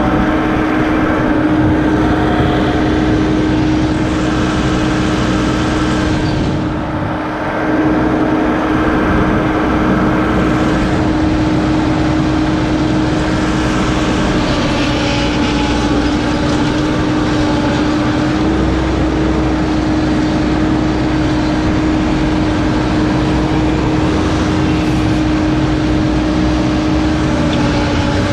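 Toro Groundsmaster 7210 zero-turn ride-on mower running steadily under way with its rotary deck: a constant engine-and-blade drone with one steady tone, heard from the operator's seat. The level dips briefly about seven seconds in, and the low rumble grows a little after about eighteen seconds.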